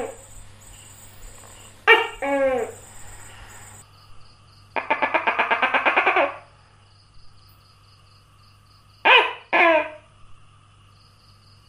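Gecko calling: a loud two-note call with each note falling in pitch, then a rapid rattling series of about a dozen pulses, then another two-note call.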